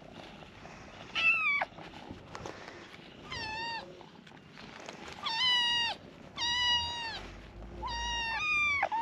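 Kittens meowing: about six separate high-pitched meows, each about half a second long and falling slightly in pitch, with gaps of a second or two between them.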